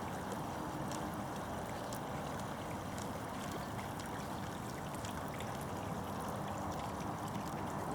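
Steady sound of river water flowing, with a light trickle.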